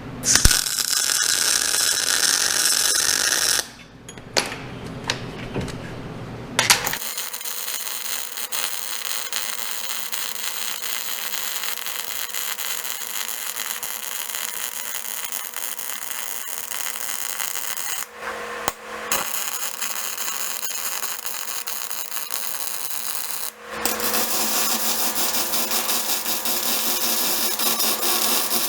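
Electric arc welding on steel: a steady, dense crackle in several stretches, each starting and stopping abruptly as the arc is struck and broken.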